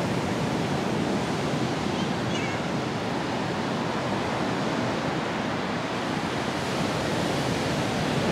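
Ocean surf breaking and washing up the beach as a steady rush, with some wind.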